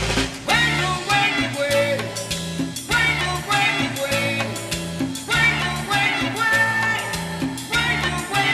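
Live Latin tropical dance-band music in an instrumental passage: a repeating bass line and drums under a melodic instrumental line, with strong band accents about every two and a half seconds.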